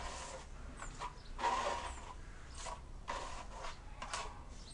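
Hand sanding of a wall's dried acrylic filler with sandpaper: about five uneven scratchy strokes, roughly one a second.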